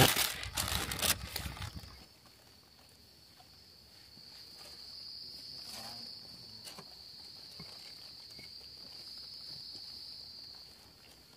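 A plastic bag rustling and crinkling for about two seconds as it is handled. Then an insect keeps up one steady, high-pitched trill that fades near the end.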